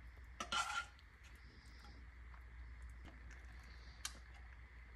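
Quiet kitchen handling sounds over a low room hum. A serving spoon gives a brief scrape and clatter against the glass baking dish about half a second in, and there is a single sharp tick just after four seconds.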